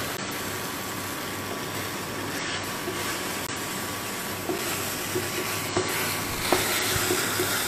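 Vegetables and tomato paste sizzling steadily in a pan while being stirred, with a few light clicks of the spoon against the pan in the second half.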